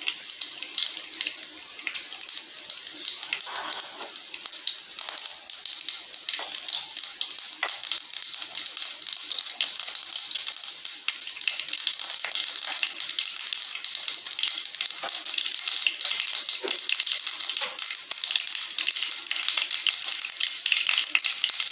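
Mustard seeds frying in hot oil in a nonstick kadai: a steady sizzling hiss dotted with many small pops and crackles, growing louder as the seeds heat up and begin to splutter.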